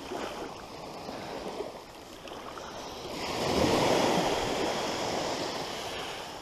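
Small waves washing up a sandy beach; one wave breaks and rushes in about halfway through, swelling to the loudest part before easing off.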